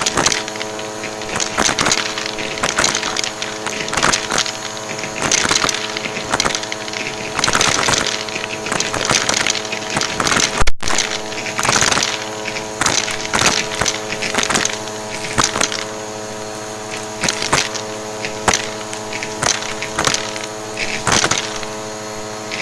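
Vacuum cleaner running with a steady motor hum while its dusting brush attachment is worked over a surface, giving frequent short rushes of air and brushing noise, roughly one or two a second. A brief break about ten seconds in.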